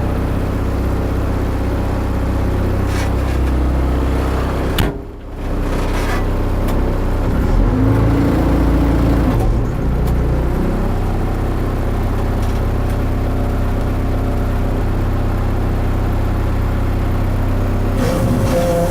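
Case 590 Super M backhoe loader's diesel engine running steadily, with a short drop in level about five seconds in, a brief whine around eight seconds, and a higher whine starting near the end.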